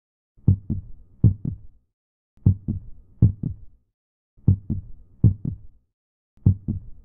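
Heartbeat sound effect: low lub-dub thumps, two beats and then a pause, repeating about every two seconds.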